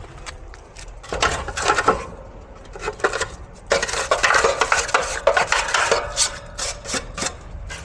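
Metal clinking, rattling and scraping in irregular bursts with sharp clicks: metal tools or parts being handled on the outdoor air-conditioning unit.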